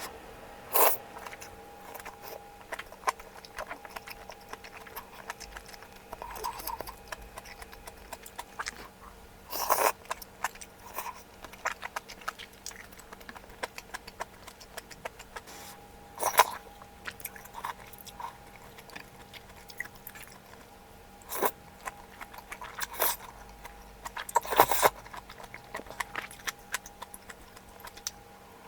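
A person chewing and biting mouthfuls of malatang on a close microphone, with irregular short clicks and a few louder bursts, over a faint steady hum.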